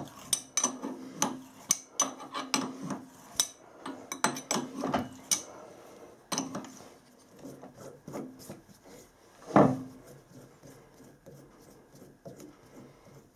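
Threading die in a tailstock die holder turned by hand, cutting a thread on a stainless steel stud: a run of short scraping clicks, about two a second, as the die bites. One louder knock comes about two-thirds through, followed by quieter handling noise as the die is wound back off.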